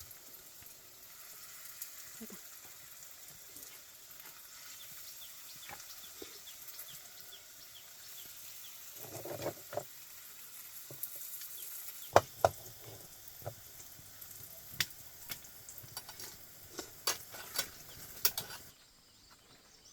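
Food frying in hot oil, a steady sizzle, with sharp clicks and knocks of a utensil against the pan coming more often in the second half. The sizzle drops away suddenly near the end.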